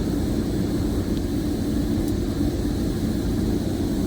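Steady low engine drone with no change in level.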